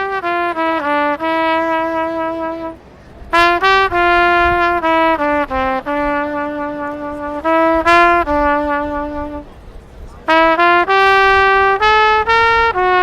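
Solo trumpet playing a slow melody of long held notes. It comes in three phrases, with a short breath between them about three seconds in and again about nine and a half seconds in.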